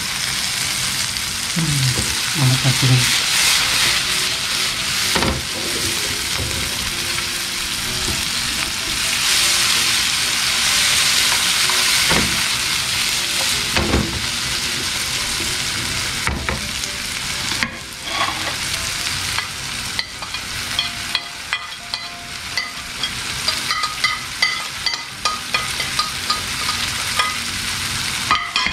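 Diced pancetta and vegetables sizzling in oil in a nonstick frying pan, with a spatula stirring and tossing them and the odd knock or scrape against the pan. About two-thirds of the way through the sizzle drops lower and breaks into small crackles and pops.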